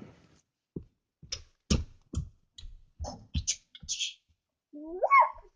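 Irregular sharp clicks and knocks with a few short hissy bursts in between, then near the end a brief squeal that rises and falls in pitch.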